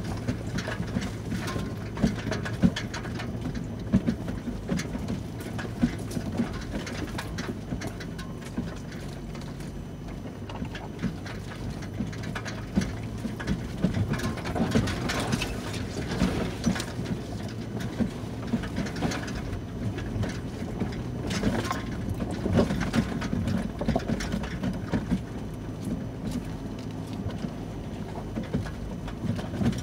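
Off-road SUV crawling slowly over a rocky trail, heard from inside the cab: a steady low engine hum with frequent knocks and rattles as the tyres and suspension go over rocks.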